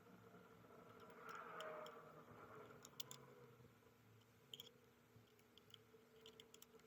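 Near silence: faint steady room hum, a soft rustle about a second in, and a few small scattered clicks near the middle and end.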